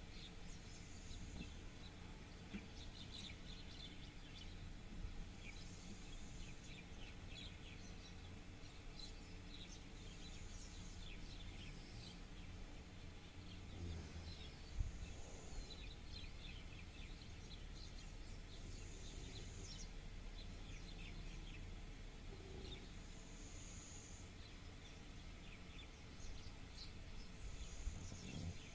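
Faint outdoor ambience: scattered bird chirps over a steady low hum, with one short high call repeating about every four and a half seconds.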